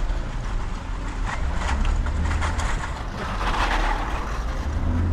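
Porsche Cayenne on the move: a steady low rumble of engine and road, with a stretch of hissing noise in the middle, loudest about three and a half seconds in.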